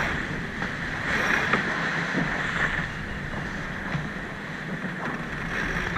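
Steady rushing noise of wind and water on a sailboat, with wind buffeting the microphone.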